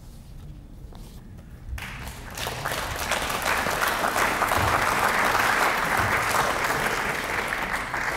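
Audience applauding, starting about two seconds in, swelling to a peak and then slowly dying away.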